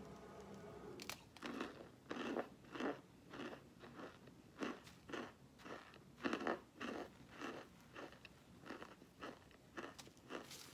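A person biting and chewing crunchy oven-baked white chunks, close up. A run of sharp, irregular crunches at about two a second starts about a second in.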